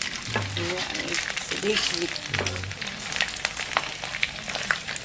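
Rice crackers (kerupuk nasi) frying in hot oil in a wok, a steady sizzle full of small crackling pops, while a spatula turns them.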